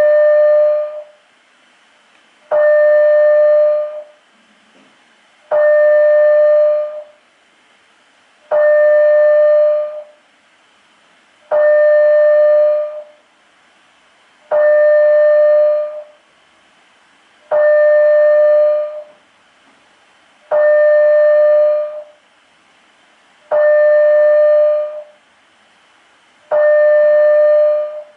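Building fire alarm sounding a steady tone about a second and a half long, repeating every three seconds. Twenty tones a minute is the pace of the alert stage of a Canadian two-stage fire alarm system.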